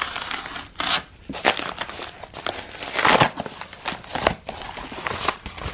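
Padded kraft-paper bubble mailer crinkling and rustling as hands pull it open, in irregular bursts, loudest about three seconds in and again just after four.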